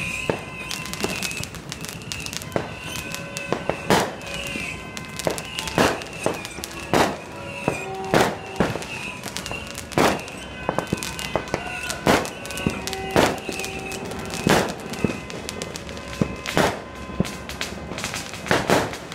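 Fireworks and firecrackers going off: sharp, irregular bangs about every second, over steady tones in the background.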